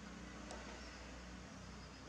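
Quiet steady room hiss with a low hum, and one faint short click about a quarter of the way in.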